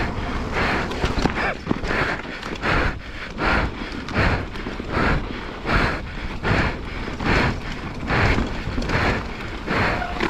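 Mountain bike rider breathing hard in a steady rhythm, about one and a half breaths a second, over the constant rumble of tyres rolling on a dirt trail.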